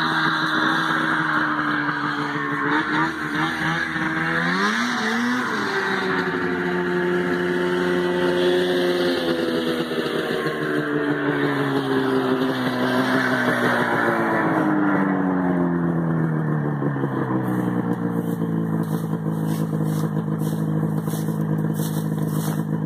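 A quad's engine, an Arctic Cat 550 in a Polaris, runs steadily as the quad drives across the field. It revs up and back down once about five seconds in, then its pitch sinks slowly as the quad comes up close. Light clattering is heard near the end.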